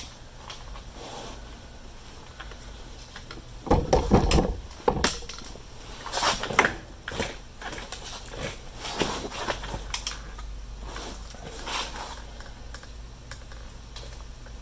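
Metal hand tools clinking and clicking irregularly as a wrench is worked on an easy out in a broken bolt, with a cluster of heavier metal knocks about four seconds in.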